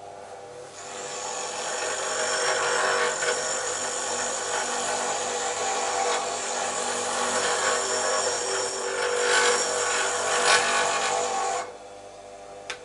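Bench grinder running with steel held against the spinning wheel: a steady grinding rasp that starts about a second in and cuts off abruptly near the end, leaving the motor's faint hum.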